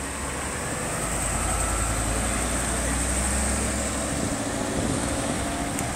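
A motorcade's heavy cars and SUVs driving past close by, their low engine and tyre rumble swelling about a second in and easing off after about four seconds.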